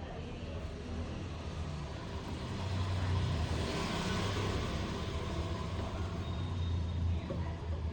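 Vehicle engine running steadily with a low hum, with a broad swell of noise about three to four seconds in.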